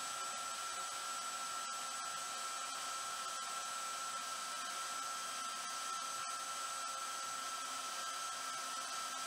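Vevor portable metal-cutting bandsaw running on its slowest speed, its blade cutting through 20 mm thick mild steel bar: a steady whine with a high-pitched tone over it.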